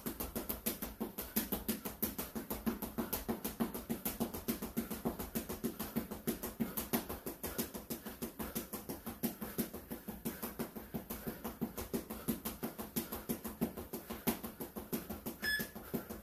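Rapid, even footfalls of a person sprinting in place in sneakers on a wooden floor, a quick patter of foot strikes. A short interval-timer beep sounds near the end.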